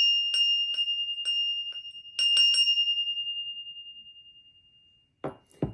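A small bell rung repeatedly, a clear single-pitched ring struck two or three times a second, shaken again in a quick burst about two seconds in, then left to ring out and fade away. It is rung to clear energies. A brief handling noise comes near the end.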